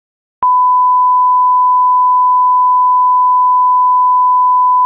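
Steady 1 kHz line-up test tone of the kind that accompanies colour bars, one loud unchanging pure tone that cuts in suddenly about half a second in.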